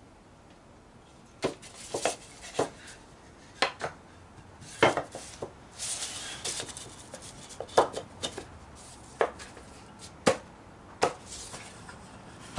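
Dovetailed wooden boards knocking and clacking against each other and the workbench as a half-blind dovetail joint is test-fitted: about a dozen irregular sharp knocks, with a brief rubbing of wood on wood about six seconds in.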